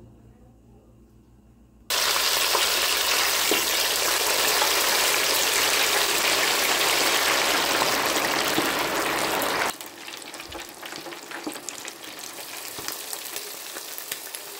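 Seasoned fish pieces in a deep-fryer basket frying in hot oil. Loud sizzling starts suddenly about two seconds in. Some eight seconds later it drops abruptly to a quieter sizzle with light crackling.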